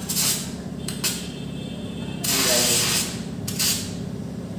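Short hissing spurts of acetylene gas from the nozzle of a homemade calcium carbide and water gas torch, held to a lit match: four bursts, the longest and loudest lasting nearly a second near the middle. The gas flow is weak and the flame is not catching properly.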